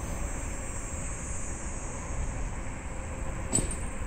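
Wind rumbling on the microphone over a steady outdoor background, with one sharp click about three and a half seconds in.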